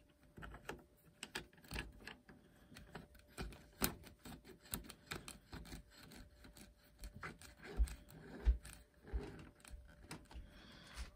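A red alloy wheel nut being spun by hand onto the threaded hub of an RC monster truck wheel: faint, irregular clicks and rubbing, with two louder knocks about eight seconds in.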